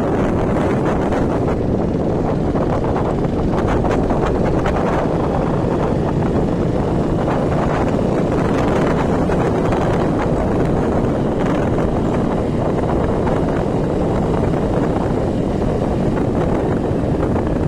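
Steady wind buffeting the microphone over the low rumble of a moving vehicle.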